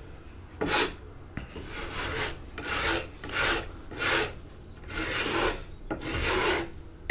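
Hand scraper pushed across a varnished wooden table top, scraping off varnish softened by chemical stripper in about seven separate rasping strokes.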